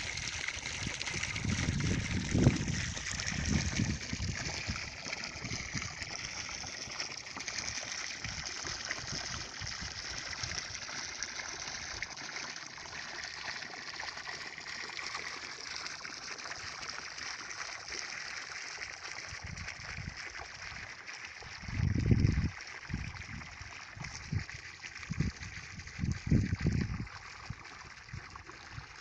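Steady hiss of running water, with low gusts of wind buffeting the microphone about two to four seconds in and again around twenty-two and twenty-six seconds.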